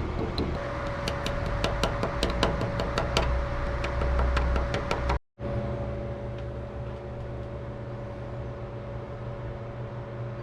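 Rapid, evenly spaced ticking over a steady hum, cut off abruptly about five seconds in. A steady mechanical hum follows alone.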